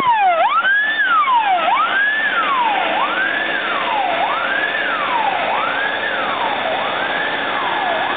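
Fire engine siren wailing: each cycle rises quickly in pitch, then falls more slowly, repeating about every 1.3 seconds.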